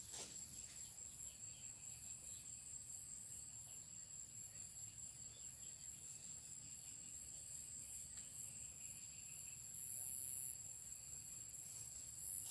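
Insects trilling steadily at a high pitch, with a brief, louder burst of high buzzing about ten seconds in and another near the end.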